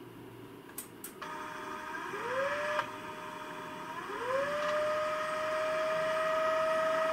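Stepper motor of an SP-668 UHF antenna filter driving the variable capacitors through their gear train while retuning the filter, giving a pitched whine that glides up twice as the motor speeds up and then holds steady. A couple of sharp clicks come about a second in, before the motor starts.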